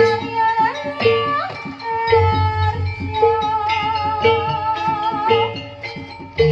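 Javanese jaranan music: a lead melody that slides between notes and wavers with vibrato, over a struck note repeating about twice a second and a low drum pulse.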